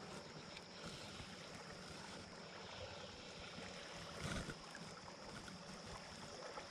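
Faint, steady running of a shallow creek flowing around the wading angler, with a brief low bump about four seconds in.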